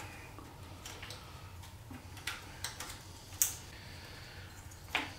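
A handful of light, sharp plastic clicks and taps as motorcycle O2 sensor wiring connectors are handled and plugged back together, over a faint low hum.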